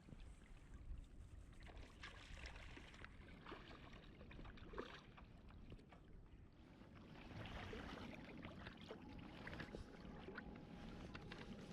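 Faint riverside noise of moving water, with scattered light ticks and taps.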